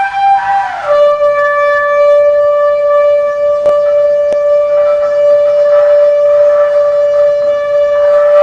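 A shofar (ram's horn) sounding a long call: a higher note breaks down to a lower one about a second in, and the lower note is held steady for about seven seconds.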